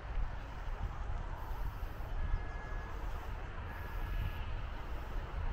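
Steady outdoor background rumble and hiss, heaviest in the deep low end, with two brief high steady tones near the middle.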